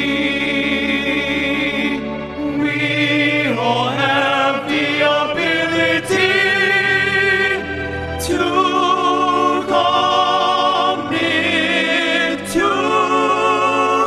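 Four-man male vocal group singing in harmony over a karaoke backing track, in long held notes with vibrato.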